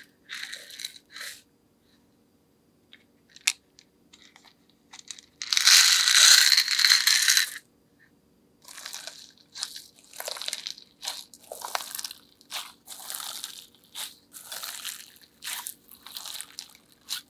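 Slime being worked by hand: short crunchy, squishy presses, roughly one a second in the second half, with one longer, louder crackle of about two seconds partway through.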